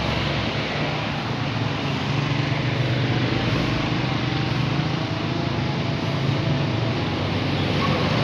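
Street traffic: cars, a motor tricycle and a motorcycle passing by, with a steady low engine drone over road noise.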